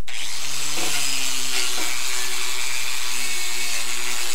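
Corded angle grinder with a wire wheel brush scouring old paint off a Willys MB Jeep's thin steel grille: the motor whines into speed at the start, then runs steadily under a loud, hissing scrub of wire on metal.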